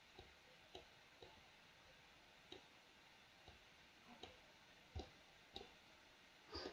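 Faint computer mouse clicks, about ten at irregular intervals, against near silence.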